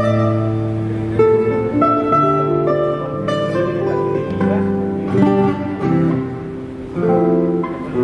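Guitar played note by note: a slow melody of plucked notes that ring on over held low notes, as the guitar is tried out in a sound check.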